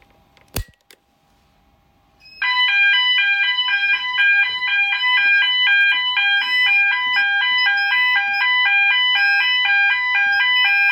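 A manual call point clicks as it is pressed. About two seconds later the fire alarm sounders of a Fike Twinflex Pro system start up loud, in a rapidly alternating two-tone pattern. This is the system going into full alarm from the call point, out of test mode, to prove the sounders work.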